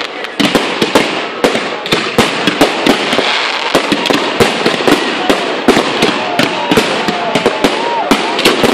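Fireworks display: aerial shells bursting in quick succession, several sharp bangs a second over continuous crackling. In the second half there are short rising-and-falling whistles.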